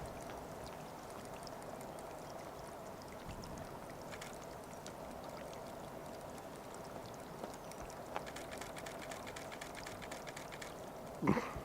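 Steady faint outdoor hiss like trickling water in an estuary at low tide, with scattered faint ticks. A short, loud call with a bending pitch comes near the end.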